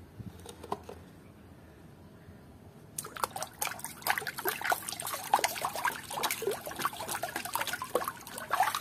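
Water sloshing and splashing as hands scrub muddy plastic toy animals in a basin, starting about three seconds in and going on in quick, irregular splashes.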